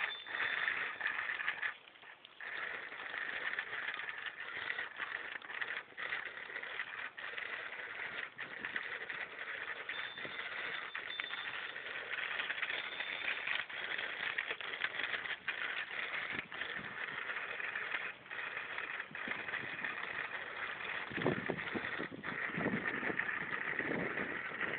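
Child's bicycle with training wheels rolling over asphalt, rattling, with scattered small clicks over a steady hiss. A louder stretch of lower rumbling comes near the end.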